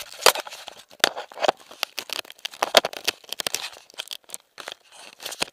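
Irregular rustling and crackling with many sharp clicks, like gear or clothing brushing and knocking against a body-worn action camera.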